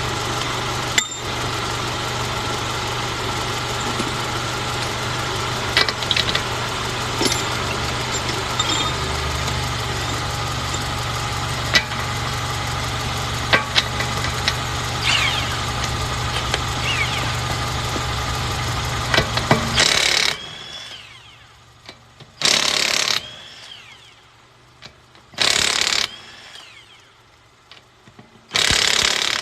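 A vehicle engine idling steadily with scattered clicks, which stops suddenly about two-thirds of the way in. Then come three short bursts of a cordless impact wrench, each winding down in a falling whine, as the lug nuts are spun off the wheel.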